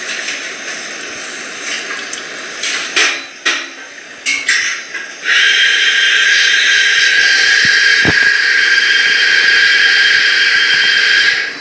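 Hot water poured into a V60 pour-over dripper over ground coffee: at first a lighter flow with a few knocks, then about five seconds in a loud, steady rush that cuts off sharply near the end.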